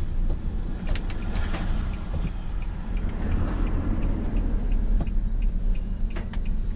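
A Nissan cargo van driving along a street, heard from inside the cab: a steady low rumble of engine and road noise, with a sharp click about a second in.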